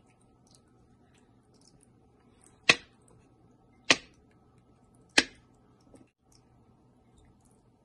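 A miniature cake pan is knocked down onto a table three times, about a second and a quarter apart, to level the cake batter in it. Each knock is a sharp tap, and a fainter one follows near the end.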